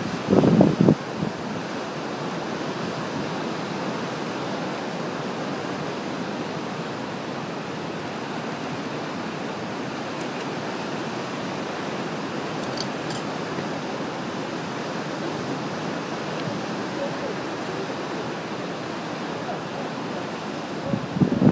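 Ocean surf washing over rocks as a steady rushing wash. Wind buffets the microphone in short low bursts about half a second in and again near the end.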